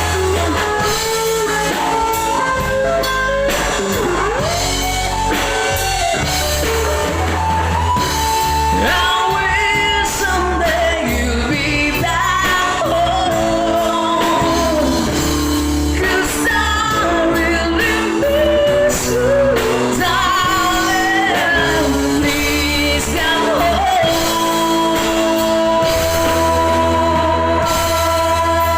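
A band playing a rock song: a sung melody over guitar, bass and drums.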